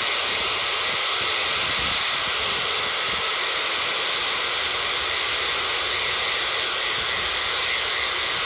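Steady radio static hissing from a handheld scanner's speaker, tuned to 27.255 MHz AM. The hiss holds an even level throughout, without breaks or voices.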